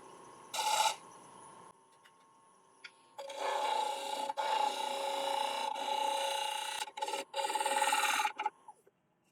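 Woodturning gouge cutting the inside bottom of a spinning damson bowl on the lathe. A short cut comes about half a second in, then a longer continuous scraping cut runs from about three seconds in until near the end, broken by a few brief pauses.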